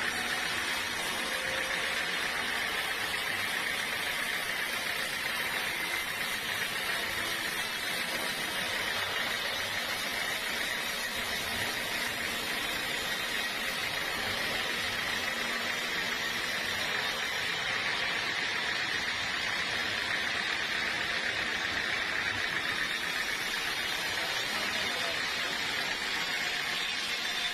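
Sawmill saw running steadily through teak wood, a constant machine noise with no pauses.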